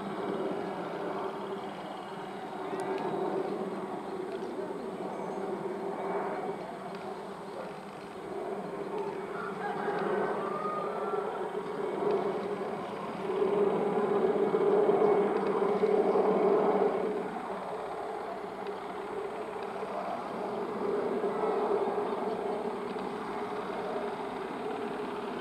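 WAP-7 electric locomotive approaching at speed with a steady hum. The hum swells louder for a few seconds just past the middle, then eases back.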